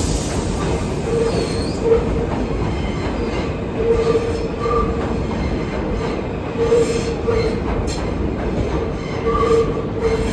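R160B subway train running on the track: a steady rumble of wheels on rail, with short squealing tones coming back every second or two.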